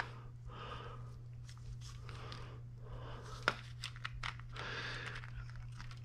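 Faint rustling of a plastic bag and gloved hands handling engine parts, with a few small sharp clicks about three and a half to four seconds in, over a steady low hum.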